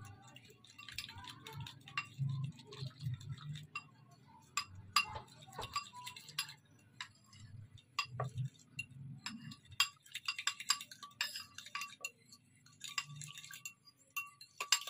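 A spoon clinking and scraping against a bowl as maida and cornflour are mixed with water into a thin batter: irregular light clinks, busiest about ten seconds in.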